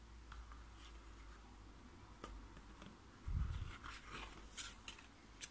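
Faint rustles and light ticks of a cardboard lift-the-flap picture book being handled, with a soft low bump a little past halfway through.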